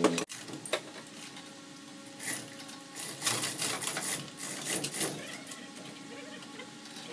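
Scattered metallic clinks and rattles of hand work on an engine in a vehicle's engine bay, with a steady faint hum underneath.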